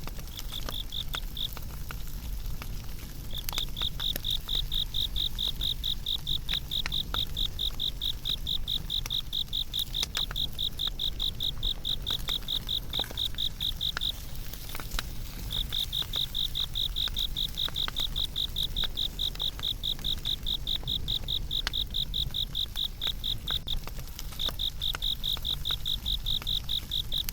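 A cricket chirping in long runs of rapid, evenly spaced high pulses, breaking off briefly three times, over scattered sharp crackles and a low steady rumble from a burning fire.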